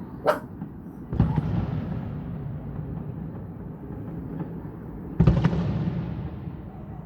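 Fireworks shells bursting: a short sharp crack just after the start, then two heavy booms, about a second in and about five seconds in, each fading away over a couple of seconds.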